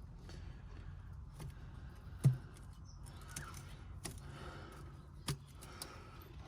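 Scattered light clicks and knocks of tools and metal parts being handled while working on an old tractor, with one louder knock a little over two seconds in.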